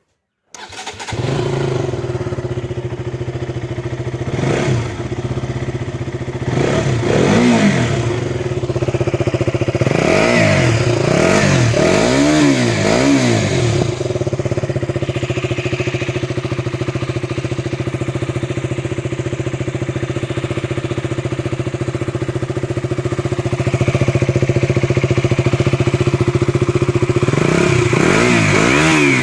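KTM RC 200 with its stock exhaust: the single-cylinder four-stroke engine starts about half a second in and settles to idle. It is revved several times, with a quick run of revs in the middle, idles steadily, then is revved again near the end.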